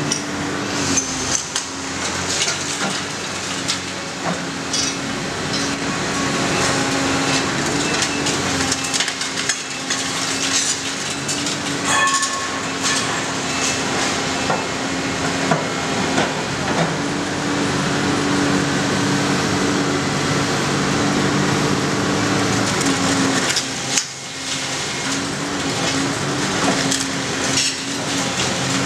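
Excavator working a hydraulic demolition crusher: its diesel engine drones steadily while the jaws crunch through a concrete slab, with repeated sharp cracks and clattering as broken concrete and rubble fall.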